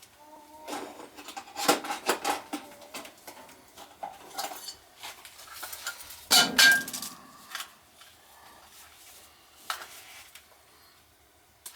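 Metal tools and small metal parts clinking and clattering as they are handled on a gas furnace, irregular knocks with a louder clatter about six seconds in.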